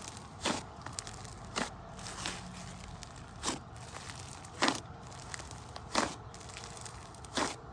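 Hands squeezing and kneading a thick white slime, giving sharp crackling pops roughly once a second, about seven in all, over a faint steady hiss.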